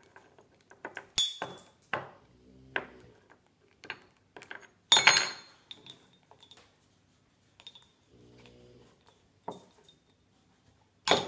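Metal teaspoon clinking and clattering against a ceramic mug and a wooden tabletop as an African grey parrot picks it up and drops it. The sharp clinks come one at a time, irregularly, with the loudest about a second in, about five seconds in and right at the end.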